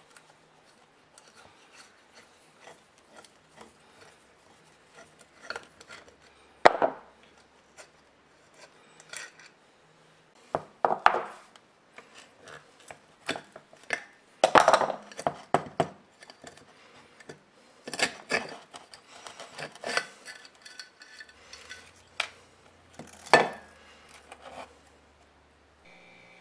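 Hand tools clicking, knocking and scraping against the metal housing of an old electric drill as it is taken apart: a screwdriver working a screw, then a flat blade scraping caked old oil and dirt out of the motor housing. The sounds come in irregular short bouts, with a few sharper knocks standing out.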